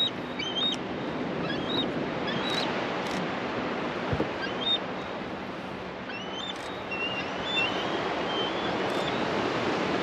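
A steady wash of surf and wind noise, with short, high, thin chirping calls coming again and again through it, the calls of bald eagles squabbling in the air.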